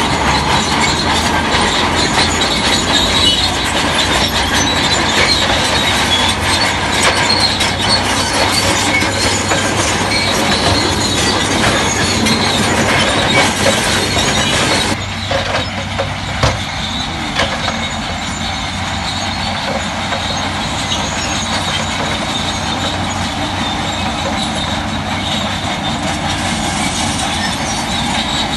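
Crawler bulldozer working, its engine running under the steel tracks' squealing and clanking. About halfway through, the sound thins out suddenly, with a couple of knocks soon after.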